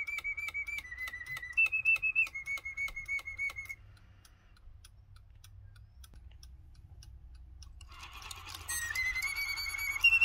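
The clock peddler figure's bellows-driven whistle plays its tune in short stepped notes, with steady mechanical clicking from the clockwork, about three clicks a second. The tune stops about four seconds in. Near the end it starts again with a breathy hiss of air from the bellows under the notes.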